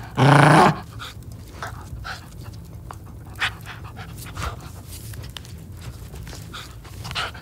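Finnish Lapphund puppy panting in short, uneven breaths while playing tug with a rope toy, with one loud half-second vocal sound from the dog just after the start.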